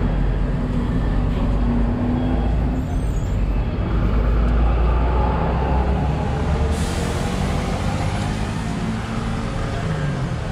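Steady low rumble and hiss of a gas burner heating a pot of bubbling sugar syrup for candied fruit skewers, over busy street-market background noise; the hiss turns brighter about two-thirds of the way in.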